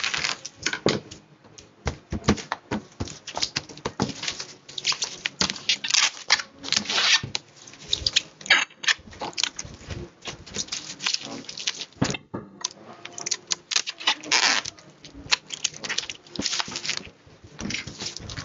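Bubble wrap crinkling and rustling in irregular bursts as it is cut with scissors and wrapped around a small box, with plastic packaging rustling near the end.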